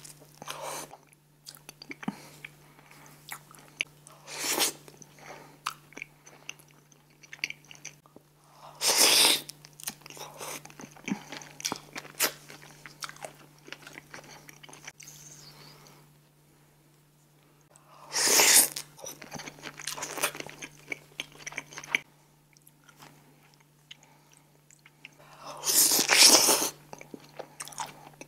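Close-miked eating: a person biting into and chewing seafood boil food, with four loud bites and crunches spread through and quieter chewing between them.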